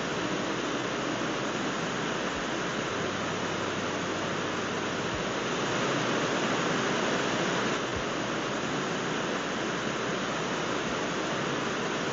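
A waterfall cascading over rock, giving a steady, even rush of falling water.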